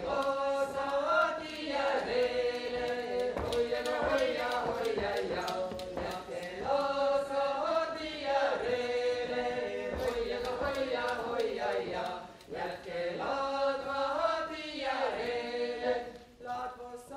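Seto leelo: a small Estonian folk choir, mostly women, singing unaccompanied multipart song in long held notes, with phrases that recur about every six seconds. The singing fades near the end.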